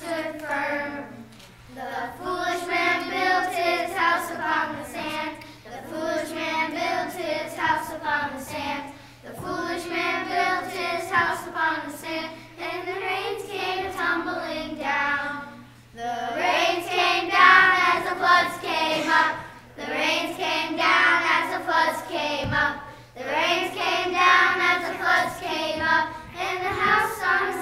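A group of young children singing together, phrase after phrase of a few seconds each with brief pauses for breath between them.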